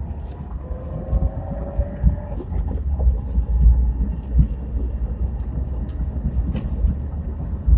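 2017 Chevrolet Niva on the move, recorded in the cabin on a phone: a steady low rumble from road and drivetrain, with an engine note rising slowly in the first couple of seconds and a few light knocks.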